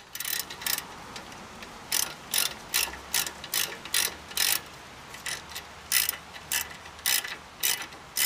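Hand ratchet wrench clicking in short bursts, about two a second with a brief pause about halfway through, as it runs in the lower slide bolt of a rear disc brake caliper.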